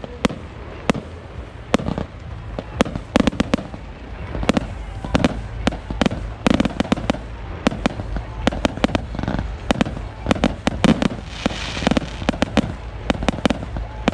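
Aerial fireworks bursting: many sharp bangs in quick, irregular succession, several a second.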